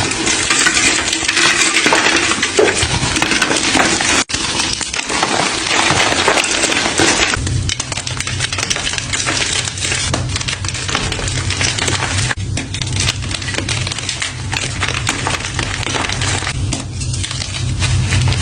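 Gym chalk being crushed and crumbled, a dense, loud crunching and crackling full of small clicks. A steady low hum joins about seven seconds in.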